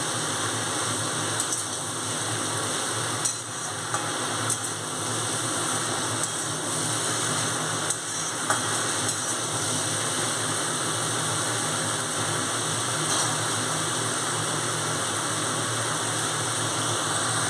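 Chopped vegetables frying in oil in a metal kadai, a steady sizzle, with a few light clicks and scrapes of a metal spatula stirring them in the first several seconds.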